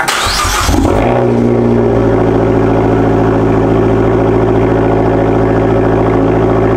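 Fiat 500 Abarth's 1.4-litre turbocharged four-cylinder on a cold start: it fires with a brief flare of revs, then settles within about a second into a steady idle, heard from its exhaust.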